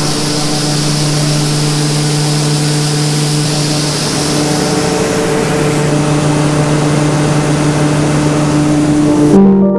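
John Deere 9500 combine running steadily: an even engine drone with a strong hiss over it. Piano music comes in just before the end.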